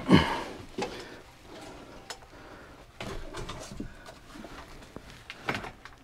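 Scattered knocks, scrapes and rustling as a compact Dometic RM2354 RV refrigerator is lifted and pushed into a tight cabinet opening, beginning with a short loud bump.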